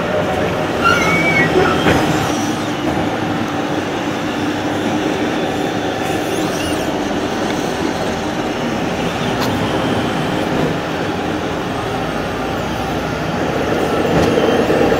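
Radio-controlled model excavator working its boom and bucket: a steady mechanical whine with rattling, and a few short high squeaks about a second in.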